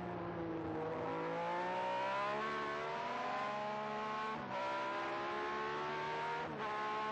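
Ligier Matra Formula One car's V12 engine heard onboard at full throttle, pitch climbing through the revs. There are two quick upshifts, each a brief break and drop in pitch, about four and a half and six and a half seconds in.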